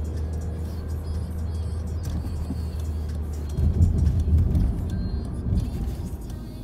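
Car driving, heard from inside the cabin: a steady low drone of engine and road noise, swelling into heavier low rumbling for a couple of seconds past the middle.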